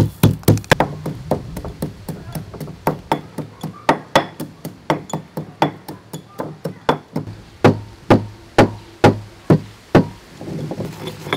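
Stone pestle pounding black peppercorns in a stone mortar: a steady run of sharp knocks, about four a second in the first second, then two to three a second. The pounding stops shortly before the end.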